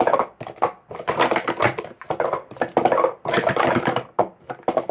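Plastic sport-stacking cups (Speed Stacks) being stacked and unstacked at speed on a mat: a dense run of quick plastic clacks and clatter with a few brief pauses.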